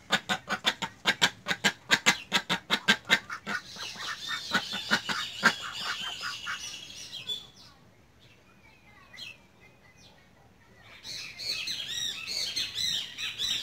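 Domestic ducks quacking: a fast run of loud quacks, about four a second, that stops after about five seconds. High chirping of small birds follows, fades, and comes back near the end.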